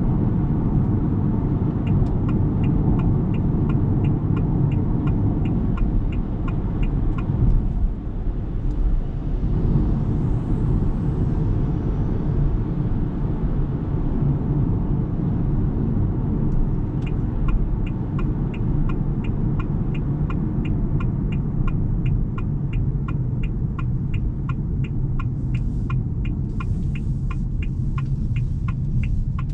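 Steady low rumble of road and tyre noise from a 2023 Ora Good Cat electric car driving, with no engine sound. A turn-signal indicator ticks evenly, two to three clicks a second, from about two seconds in for several seconds, then again from a little past halfway on.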